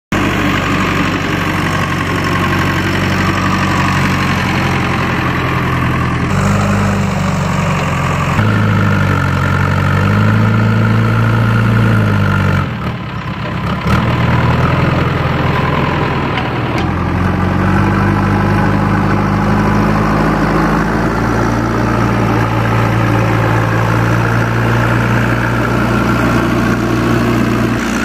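JCB 3DX backhoe loader's diesel engine running under working load, its pitch stepping up and down several times as the machine digs and pushes soil. It drops briefly quieter about halfway through.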